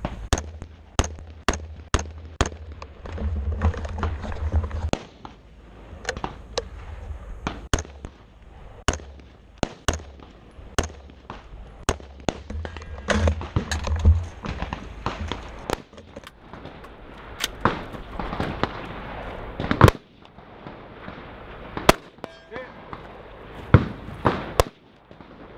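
Rifle shots on a shooting range: a long string of sharp cracks, about two a second in the first few seconds and then more irregular and spaced out. A low rumble lies under the opening seconds and returns briefly midway.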